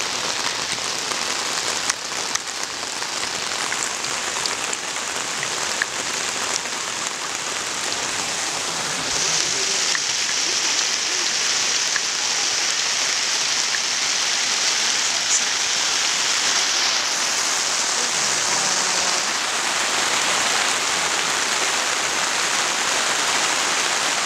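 Heavy rain drumming on a tent roof: a steady hiss with scattered drop ticks that grows heavier about nine seconds in.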